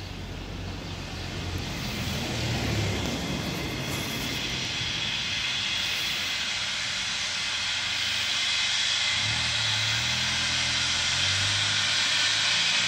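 Steam locomotive No. 80104, a BR Standard Class 4 2-6-4 tank engine, letting off a steady hiss of steam as it sets off, growing louder. A low hum joins about nine seconds in.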